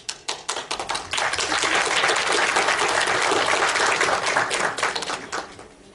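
Audience applauding: scattered separate claps that swell within about a second into full, dense applause, then thin out and die away near the end.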